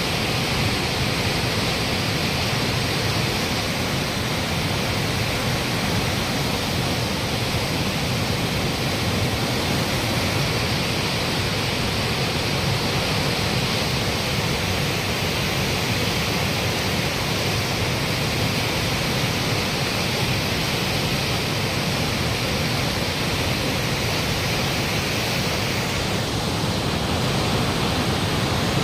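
Tamsa river in flood, its torrent of muddy water rushing past in a steady, unbroken roar.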